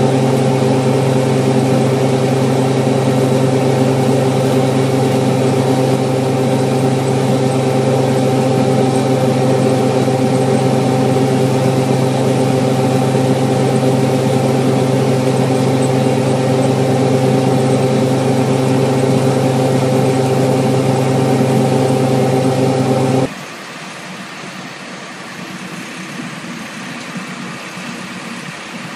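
Oxbo pea combine running steadily, a loud constant machine hum at one unchanging pitch. About 23 seconds in it cuts off abruptly, leaving a quieter engine and machinery sound.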